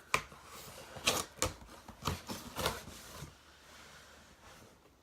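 Handling noise: a handful of sharp clicks and knocks with light rustling, close to the microphone, settling to quiet after about three seconds.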